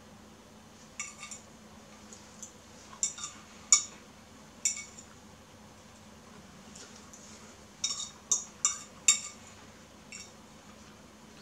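Metal fork clinking and scraping against a ceramic plate while scooping up fried rice: about a dozen sharp clinks at irregular intervals, bunched in the first few seconds and again about eight seconds in.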